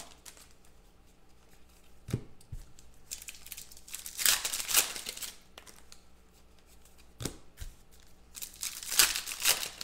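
Foil trading-card pack wrappers being torn open and crinkled by hand, in three bursts of rustling with a couple of soft knocks between them.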